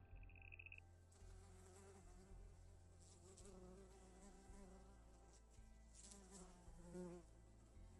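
Near silence: a faint, low buzzing hum, with a few faint clicks.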